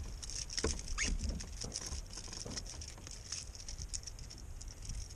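A hooked pickerel thrashing on the line beside the kayak: a quick run of small clicks and taps, busiest in the first three seconds, then thinning out.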